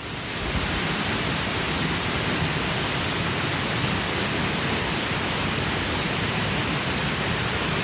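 Waterfall: falling water rushing steadily, an even noise that rises over the first half second and then holds.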